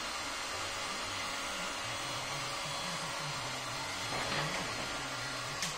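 Electric heat gun blowing hot air steadily, heating vinyl wrap film, with a sharp click near the end.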